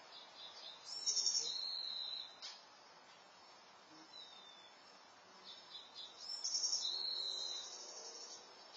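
A small songbird singing two high, trilled song phrases, each about one and a half to two seconds long: one about a second in, the other a little past the middle.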